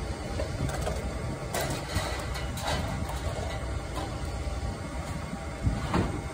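Footsteps clanking on a metal grated loading ramp, mostly between about one and a half and three seconds in and again near the end, over a steady low rumble of an idling engine.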